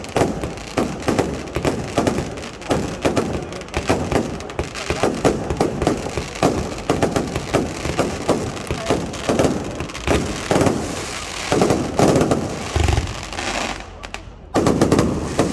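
Fireworks display: a rapid, continuous string of bangs and crackles, with a few heavier booms near the end.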